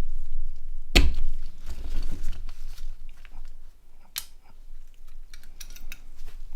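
Plastic parts of a Nokia N91 phone being pried and handled: a sharp crack about a second in, another around four seconds in, then a run of small clicks near the end.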